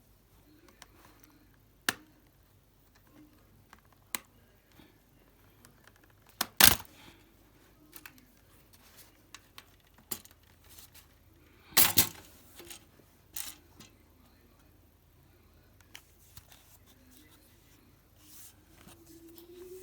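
Scattered clicks, taps and knocks of a laptop being handled and taken apart, with two louder knocks about a third and about three fifths of the way through.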